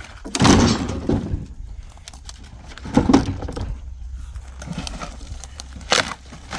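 Firewood being broken and handled by hand: three loud woody crashes, a long one about half a second in, another about three seconds in and a short sharp one near the end, over a low steady rumble.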